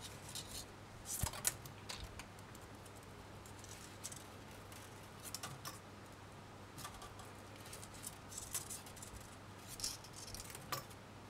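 Thin craft wire being wrapped by hand in loose coils around a wire pendant frame: faint, scattered clicks and ticks of the wire brushing and snapping against itself at irregular moments.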